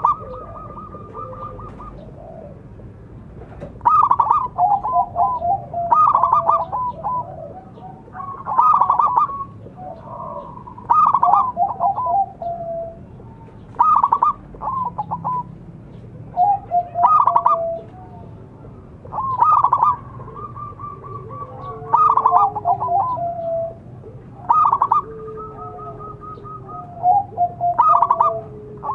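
Zebra dove (perkutut) cooing: its rapid stuttering song phrase repeated about every two to three seconds, about ten times, with a fainter lower call underneath now and then.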